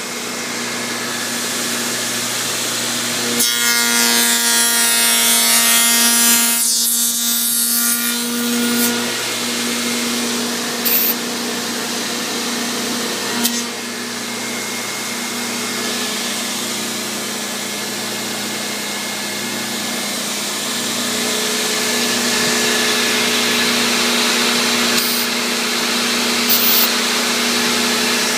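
Table-mounted router running steadily at speed, with a louder cutting noise for about five seconds a few seconds in as the bit cuts across the end of a wooden rail held in a coping sled. A few short sharp sounds follow later.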